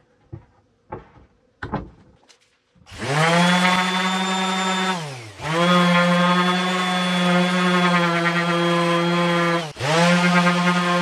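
A few light knocks, then about three seconds in an electric random orbital sander starts up and runs with a steady whine while sanding a wooden table top with epoxy inlays. Twice its pitch drops sharply and climbs back up.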